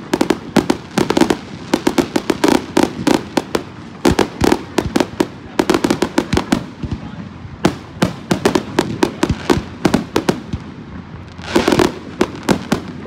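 Fireworks going off in rapid strings of sharp pops and crackles, many bangs a second, in clusters with short lulls between them.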